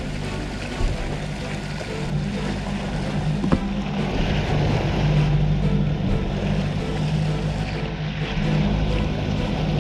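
Suzuki 90 hp outboard motor running steadily, with a constant low engine hum under the rush of water and wind as the boat trolls.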